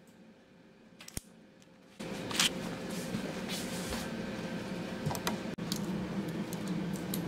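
A single snip of kitchen scissors cutting grilled pork belly, then steadier, louder room noise with scattered light clicks and taps as a waiter's corkscrew is twisted into a wine bottle's cork.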